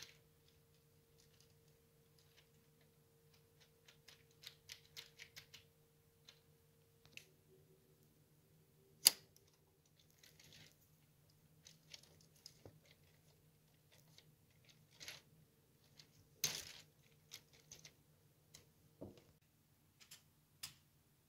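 Scattered clicks and light taps of LEGO Technic plastic parts being handled and pressed together, with one louder click about nine seconds in and another near sixteen seconds. A faint steady hum runs underneath.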